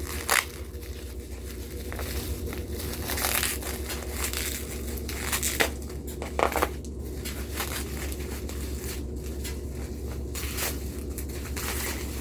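Packing material being unwrapped by hand: irregular crinkling and tearing, with a few sharper crackles about half a second in and again around the middle.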